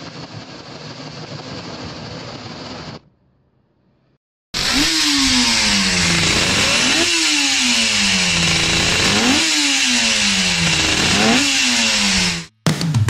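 Suzuki RG 500 two-stroke square-four racing engine being blipped: four quick rises in revs, each sinking back more slowly, about every two seconds. Before it, a faint steady hiss and a short silence.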